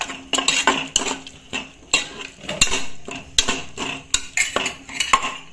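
A metal ladle stirring a thin, just-watered curry masala in a pressure cooker, with repeated clinks and scrapes of metal on the pot.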